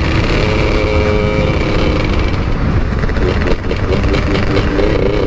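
Modified automatic scooter engines revving over a heavy low rumble. The revs hold steady for a couple of seconds, then shift near the end.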